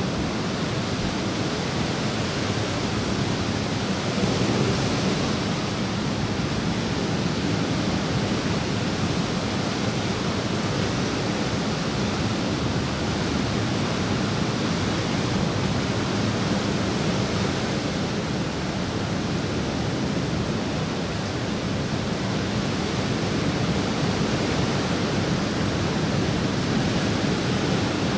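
Steady, even rush of water: light rain falling, with drops landing in a pool.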